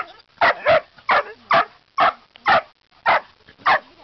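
Dog barking repeatedly at a cat, about two barks a second, some coming in quick pairs.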